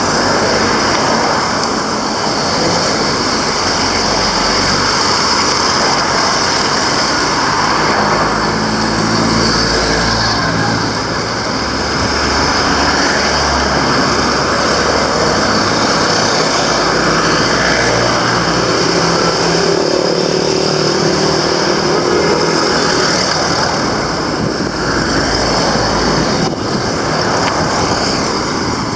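Road traffic on a busy street: cars and other motor vehicles passing, a continuous engine and tyre noise that swells as vehicles go by.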